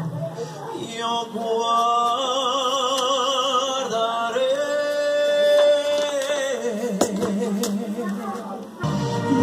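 Background music with a singing voice, long held notes that waver with vibrato.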